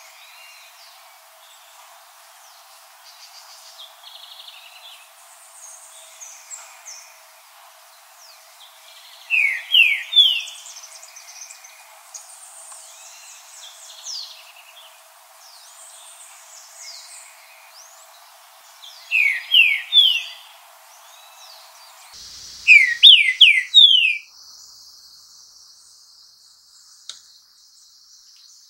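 Green-winged saltator singing: three loud phrases of a few clear rising whistled notes, about ten seconds in, about nineteen seconds in and about twenty-three seconds in. Faint chirps of other birds run underneath, and a steady high insect trill follows near the end.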